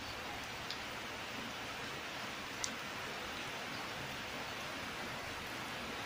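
Steady rain falling on leafy plants and wet ground: an even hiss with two sharper ticks, one near the start and a louder one about two and a half seconds in.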